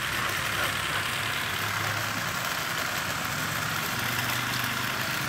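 Water jet from a hose spraying onto wet concrete, a steady hiss, over the steady low hum of a running motor.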